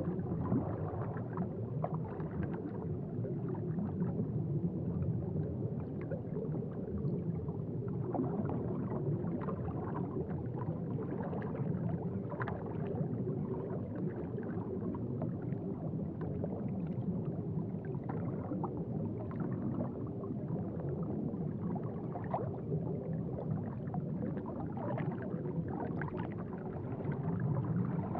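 Aquarium water bubbling and gurgling steadily, with small scattered bubble pops.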